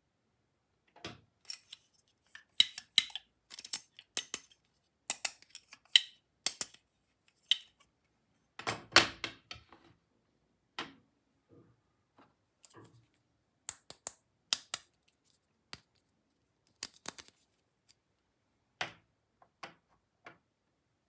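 Plastic toys and their packaging being handled: an irregular run of separate clicks, taps and crinkles, with a longer rustling scrape about nine seconds in.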